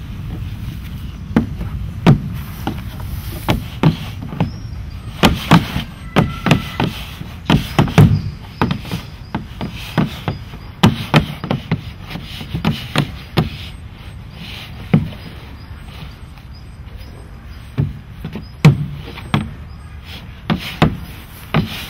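Irregular knocks and taps of a small child's hands and sandals on a hollow plastic toy slide, coming in clusters with a quieter stretch about two-thirds of the way through.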